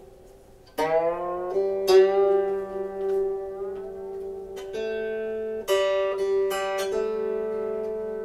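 New yellow-brass wire string on a wire-strung early Irish harp plucked again and again while it is wound up with the tuning key: its pitch slides upward as it tightens, then holds steady as it comes into tune. Each pluck rings on long, and another lower string is plucked alongside it in the second half.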